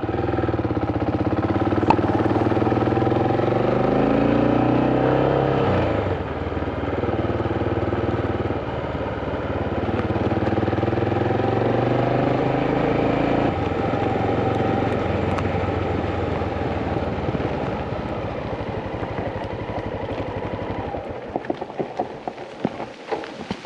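Motorcycle engine pulling away and accelerating. Its pitch rises and then drops at a gear change about six seconds in. It runs on steadily and eases off near the end.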